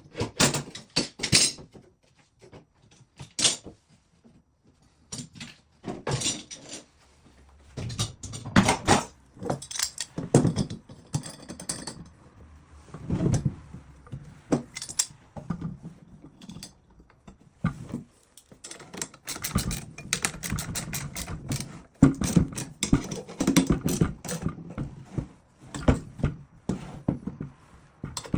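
Irregular clicks, clanks and knocks of workshop equipment being handled and adjusted by hand, with louder clusters of clatter about 8 to 10 seconds in and again from about 20 seconds on.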